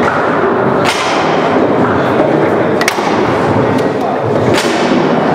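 Foosball play on a Leonhart table: a few sharp knocks of the ball being struck by the plastic men and rattling off the rods and walls, spaced about a second apart, over the steady chatter of a busy hall.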